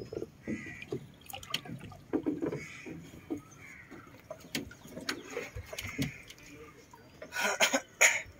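Water sloshing and lapping around a wooden punting boat as it is poled along, with birds calling and a few sharp knocks near the end.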